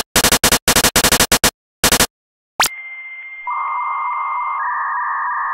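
Retro home-computer loading sounds: a run of short, loud bursts of buzzing data noise, then a click and steady electronic tones over hiss. The tones step to a new pitch twice, in the manner of a data cassette or modem loading.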